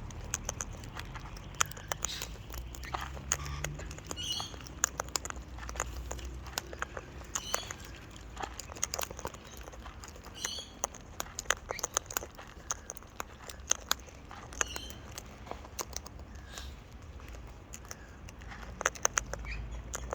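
Irregular sharp clicks and crunches of a cockatoo cracking and eating seed, with short high bird chirps every few seconds.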